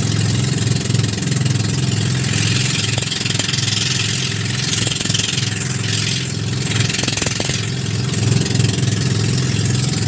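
Outrigger pumpboat's engine running steadily while under way, with a rushing hiss rising over it for several seconds in the middle.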